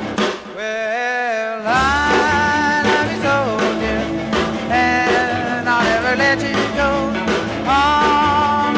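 Rock-and-roll music with singing, long held notes over a steady beat; the bass and drums drop out briefly about a second in.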